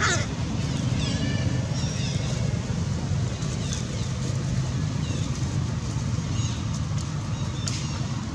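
A steady low rumble, with short high-pitched squeaks and chirps scattered through it and one sharp, falling squeal right at the start.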